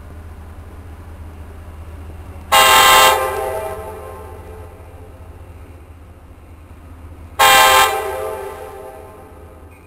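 An approaching NJ Transit train's air horn sounds two short blasts about five seconds apart. Each blast echoes away over a second or so, over a steady low rumble.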